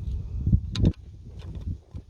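A cluster of sharp little clicks just under a second in, from a small hand tool working the plastic retaining clip on a diesel injector's leak-off pipe. Low rumbling wind or handling noise on the microphone runs underneath.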